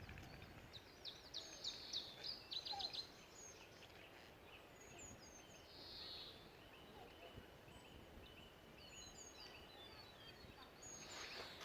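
Faint small-songbird song in the open: a quick run of short, high notes in the first three seconds, then scattered high chirps over quiet background hiss.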